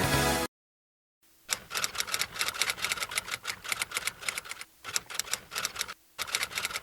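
Rapid knife chops on a cutting board, several strokes a second, in runs broken by short pauses.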